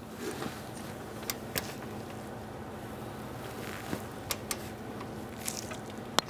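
A few short, sharp clicks from a torque wrench working the A/C line nut at the condenser as it is brought to 6 ft-lb, over a steady low hum.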